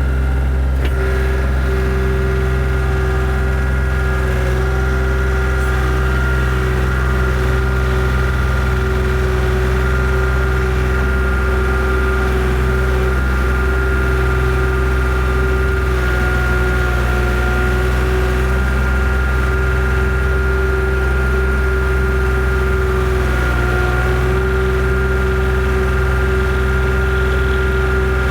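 Tracked skid steer's engine running steadily, with a constant whine over the low drone.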